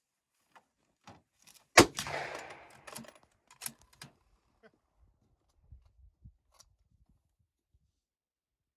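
A single loud rifle shot just under two seconds in, its report echoing away for about a second, followed by a few light clicks.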